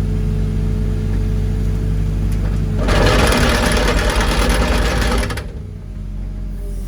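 Vibratory pile hammer buzzing for about two and a half seconds, starting near the middle, as it vibrates a wooden dock piling a little way down into the mud, gently so as not to break the dock framing. An engine runs steadily underneath.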